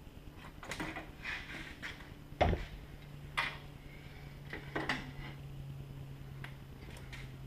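Irregular metal clanks and knocks from a red hand-winch material lift being handled and moved into position. The loudest knock comes about two and a half seconds in, and a faint steady low hum sets in just after it.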